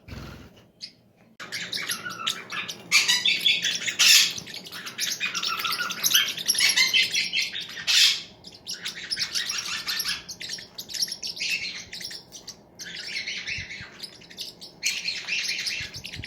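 Pet parrots chirping and chattering in fast, continuous high-pitched runs, starting about a second and a half in, with a few louder calls along the way.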